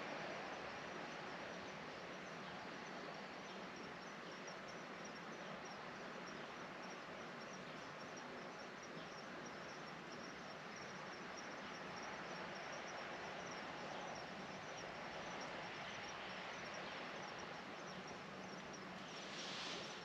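Steady rain falling, with insects chirping in a continuous, fast, high-pitched pulse over it.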